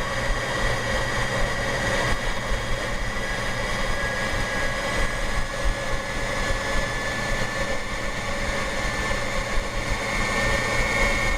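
Brother Coronado Duchess sewing machine running on its electric motor: a steady whine that dips a little in pitch midway and rises again near the end. The motor, stiff before, now runs freely after a little oil.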